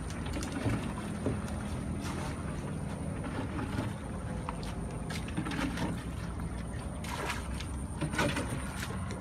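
Water splashing and sloshing as a small metal boat is bailed and washed by hand, with a few light knocks against the hull over a steady low background rumble.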